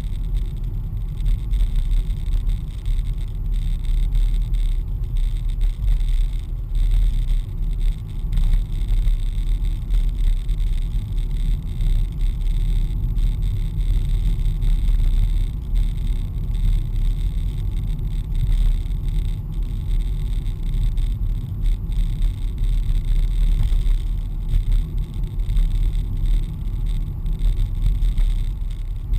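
Steady low rumble of a car driving, heard from inside the cabin: tyre and engine noise at an even speed.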